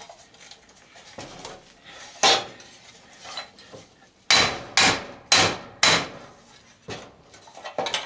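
Hammer blows on metal while dismantling an old belt/disc sander: one blow about two seconds in, then a quick run of four sharp strikes, then two lighter ones near the end.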